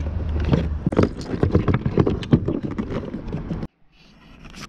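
Irregular clicking, knocking and rattling of hands working a motorcycle battery and its rubber retaining strap inside a plastic under-seat compartment. It cuts off abruptly about three-quarters of the way through, leaving only a faint background.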